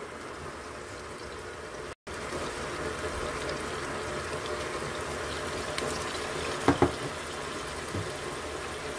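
Minced meat, onion and tomato sauce sizzling and simmering in a frying pan: a steady hiss. It drops out briefly about two seconds in, and two quick knocks come about two-thirds of the way through.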